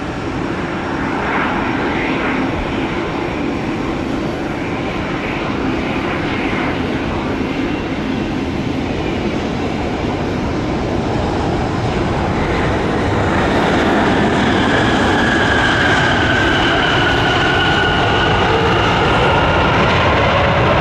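Airbus A350-900 jet engines (Rolls-Royce Trent XWB turbofans) on landing: a steady jet rumble that grows louder about two-thirds of the way through, with high whining tones that slowly fall in pitch.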